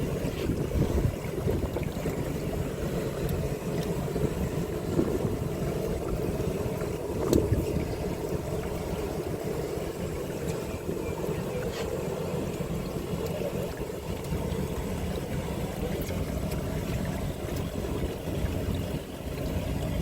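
Fishing boat's engine running with a steady low hum, with a brief knock about seven seconds in.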